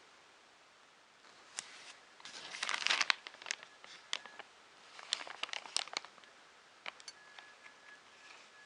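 Packaging being handled: crinkling and rustling, loudest for about a second near three seconds in, with scattered light clicks and taps.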